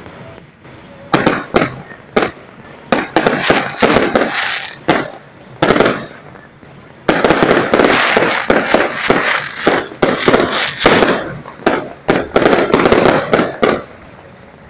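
Fireworks going off in a rapid barrage of sharp bangs and crackling, thickest in the middle and stopping about a second before the end.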